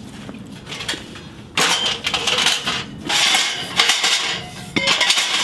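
Clattering and rattling of a small sheet-metal portable wood stove and its stovepipe sections being handled and set down on the ground, in several noisy bursts with sharp metallic clinks starting about a second and a half in.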